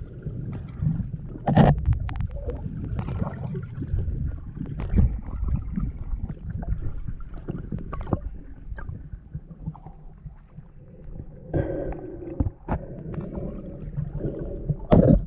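Muffled underwater sound picked up by a submerged action camera: a steady low rumble of moving water against the camera, with scattered knocks and clicks.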